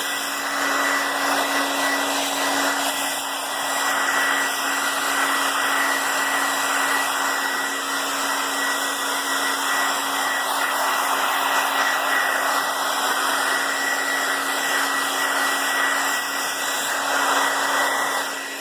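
Handheld blow dryer running steadily: an even rush of air with a constant low hum and a high whine underneath.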